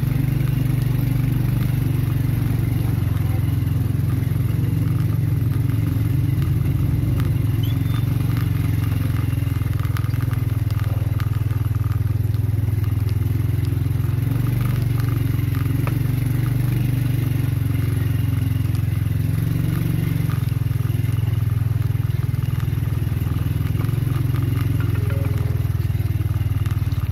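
Small motorcycle engine running steadily as it is ridden over a rough, stony gravel track, with a scattered crunch and clatter of loose stones under the tyres.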